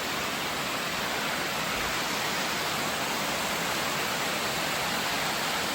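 Small woodland waterfall and stream rushing steadily, running with a good amount of water.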